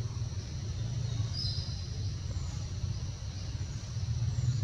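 Steady low rumble of outdoor background noise, with a short two-note bird chirp about a second and a half in and a few faint high chirps.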